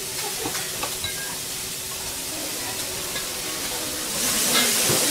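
Food sizzling on a hot teppanyaki steel griddle, with a few light clicks. About four seconds in, liquid poured from a bottle onto the shredded vegetables sets off a sudden, louder hissing sizzle.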